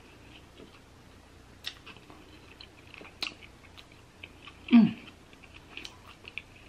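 Close-miked mouth sounds of a person chewing a soft fried-fish sandwich with tartar sauce: quiet wet smacks and small clicks. Near the end a short hum of the voice with a falling pitch, the loudest sound.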